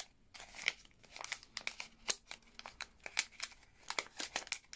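A small packaging bag crinkling and rustling in the hands as it is worked open, a quick irregular run of crackles.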